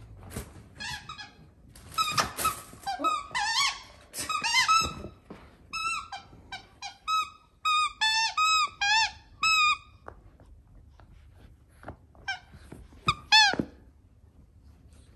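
Banana Dog squeaky toy squeaking over and over as a puppy bites and chews it: quick runs of short squeaks, each rising and falling in pitch, for about ten seconds, then a pause and a few more squeaks near the end, the last one the loudest.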